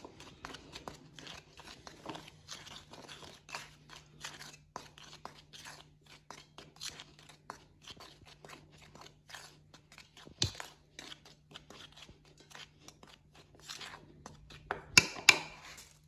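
Plastic spoon stirring and scraping a dry flour-and-spice mix in a plastic bowl: a run of short, scratchy strokes. A louder knock comes about ten seconds in and a couple more near the end.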